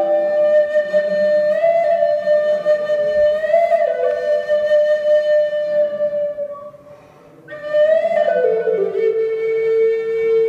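Native American flute playing a slow melody of long held notes, with a short break for breath about two-thirds of the way through, after which the tune steps down to a lower held note. The sandstone slot canyon gives the notes an echo.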